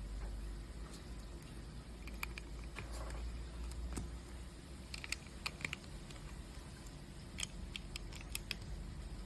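Plastic LEGO pieces clicking and rattling as they are handled and pressed together: scattered small clicks, bunched around the middle and again near the end, over a low steady hum.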